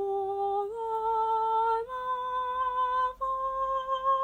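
A woman's voice singing four steadily held notes that climb step by step, two whole steps and then a half step, the do–re–mi–fa of a solfège scale.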